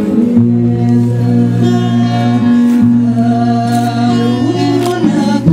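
Singing over instrumental backing, with long held notes, by a woman singing into a microphone.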